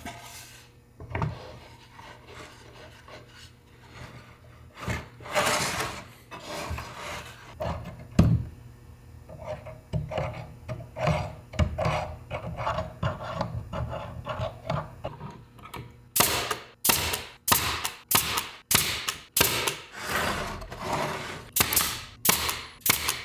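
Hand tool rasping and scraping on cedar wood in back-and-forth strokes, uneven at first, then settling into a steady run of about two strokes a second for the last third.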